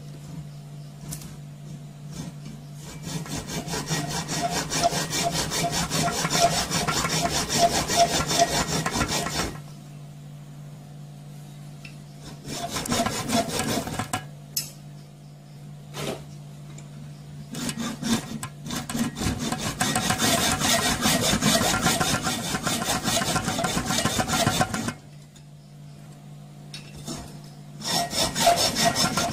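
Hand saw cutting through a cast aluminium sprue held in a vise: fast back-and-forth strokes in four long runs, with short pauses between them.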